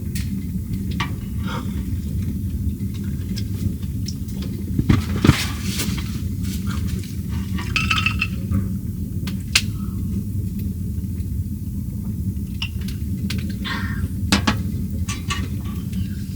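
Dishes, glassware and cutlery clinking and knocking now and then, as in handling cookware and utensils, over a steady low hum.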